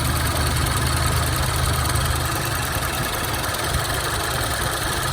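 2014 Range Rover Evoque engine idling steadily with the hood open, its electric radiator cooling fan running alongside. The fan has switched on with the AC, a sign that the newly replaced fan control module works.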